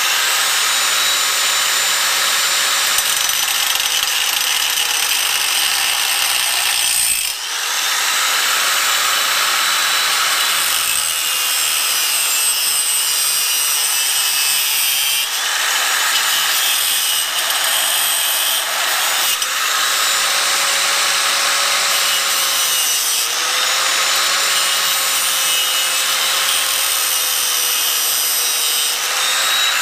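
Angle grinder with a cutoff wheel cutting relief cuts into 3/4-inch square steel tubing: a steady, loud grinding hiss over the motor's whine, dipping briefly about seven seconds in.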